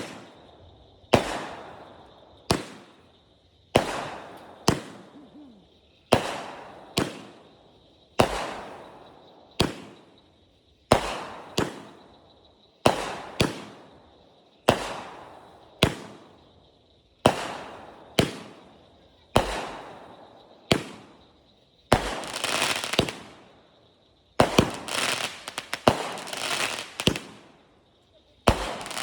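Consumer fireworks going off in a quick series: sharp bangs about once a second, each trailing off in a crackle, with denser stretches of rapid crackling near the end.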